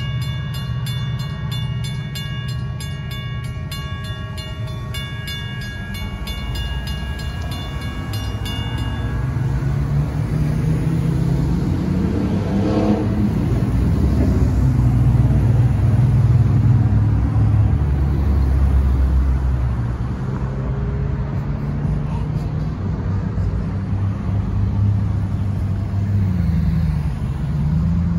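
Railroad crossing warning bell ringing over a low rumble, stopping about a third of the way in. After that, cars and a pickup drive across the crossing, their tyre and engine noise rising and fading as they pass close.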